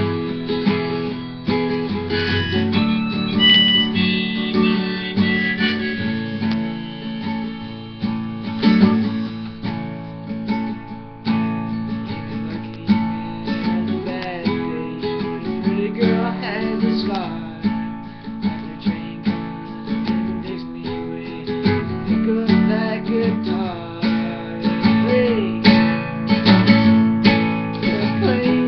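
Acoustic guitar being played, strummed chords mixed with picked notes.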